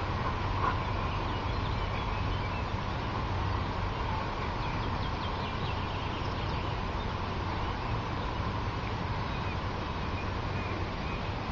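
Steady open-air background noise with faint, scattered bird chirps and calls.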